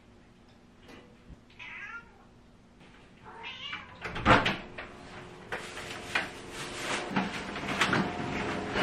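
A young cat meows twice. About four seconds in, the back door opens with a loud thump, followed by rustling and knocking of plastic grocery bags being carried in.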